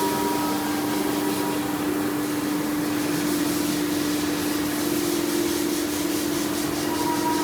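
Spindle of a linear automatic-tool-change CNC router running with a steady hum while cutting wood panel, over an even hiss from the cut.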